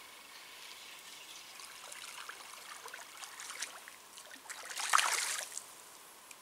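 Faint splashing and trickling water, with one louder splash about five seconds in, from a hooked tench thrashing in the shallows at the bank.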